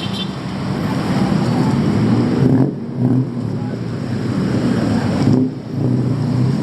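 Street traffic: motor vehicles running past with a continuous engine noise that briefly drops twice.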